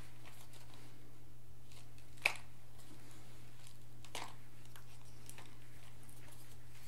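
Hands handling a small drone and its packaging: faint clicks and rustles, with one sharp click about two seconds in and a softer one about four seconds in, over a steady low hum.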